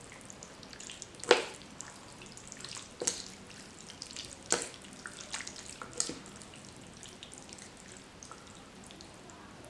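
A metal fork and a wooden spoon lifting and stirring rice vermicelli in a bowl of thick chilli sauce: soft wet stirring and dripping of sauce, with four sharp clicks spaced a second or two apart.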